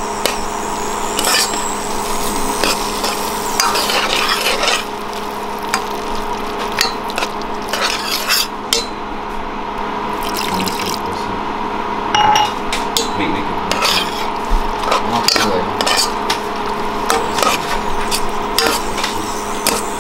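Metal spoon stirring thick macaroni and cheese in a stainless steel pot, scraping and clicking against the sides. A little water is poured in about halfway through. A steady low hum runs underneath.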